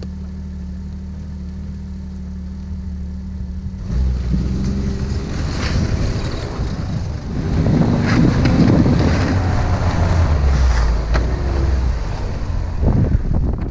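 Ski-Doo Skandic SWT snowmobile's 900 ACE four-stroke engine idling steadily, then pulling away about four seconds in and running louder under way, with wind noise on the microphone.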